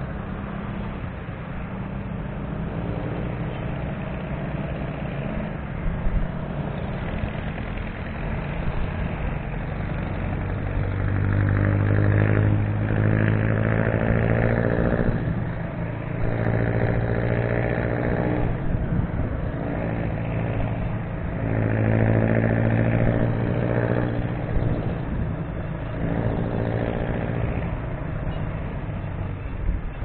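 Motorcycle engine running on the move, heard over steady wind and road noise; the engine note swells louder four times, then eases back.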